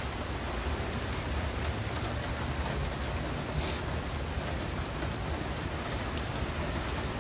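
Heavy rain falling steadily on pavement, an even hiss without breaks.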